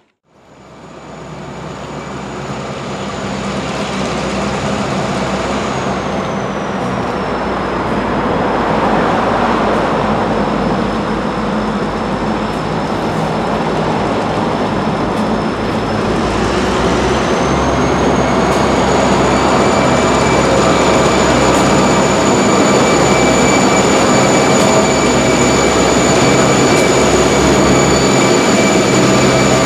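Diesel freight locomotives, led by CSX 4452, approach and pull past close by, engines running with a steady drone that grows louder over the first ten seconds. A high whine rides on top, dipping in pitch partway through and rising back later.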